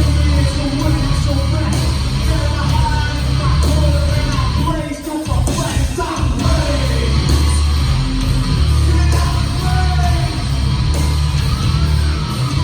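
A live band playing loud rock with yelled and sung vocals over heavy bass and drums. The music drops out briefly about five seconds in, then the full band comes back in.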